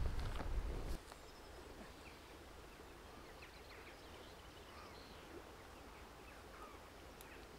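A low rumble that cuts off suddenly about a second in, then quiet rural outdoor ambience with birds chirping faintly here and there.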